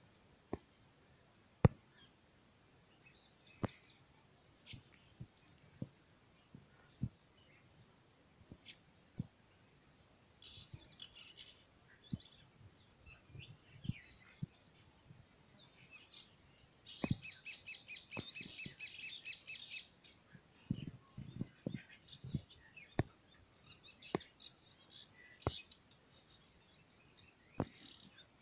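Quiet outdoor background with scattered light clicks and taps, and high bird chirps, including a quick run of repeated chirps lasting about three seconds a little past the middle.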